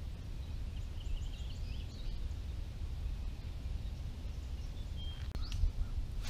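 Outdoor ambience: low steady wind rumble on the microphone, with small birds chirping faintly in the background and a couple of sharp clicks near the end.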